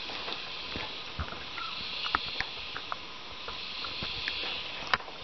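Small clicks and rustles of hands twisting the stripped wire ends of a solar panel cable together, with one sharper click near the end, over a steady high hiss in the background.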